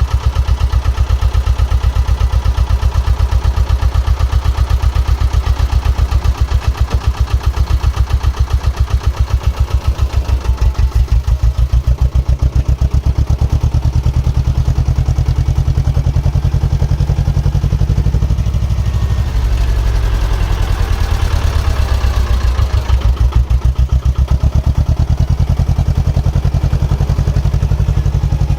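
Diesel engine of a working excavator or dumper running with an even, fast beat. Its note shifts with changing load around two-thirds of the way through, with some rattling over it then.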